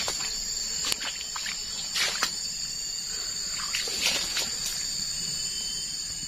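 Steady high-pitched insect chorus in the plantation undergrowth, with a few short crackling rustles about one, two and four seconds in.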